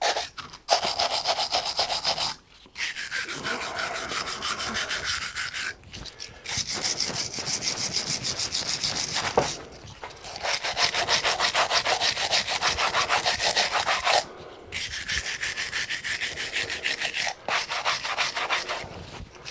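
Steel wire hand brush scrubbed hard over a steam engine's metal cylinder block in rapid back-and-forth strokes, in runs of a few seconds broken by short pauses.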